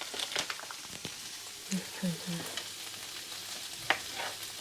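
Mushrooms frying in hot oil in a pan: a steady sizzle with fine crackles. Just under two seconds in there are three short low hums, and about four seconds in a single sharp tap.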